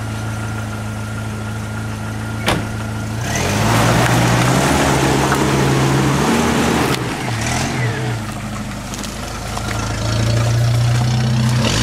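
Jeep Wrangler Rubicon engine idling, with a sharp click about two and a half seconds in, then revving up as the Jeep drives through deep mud, its tyres churning the mud; the revs dip and rise again twice.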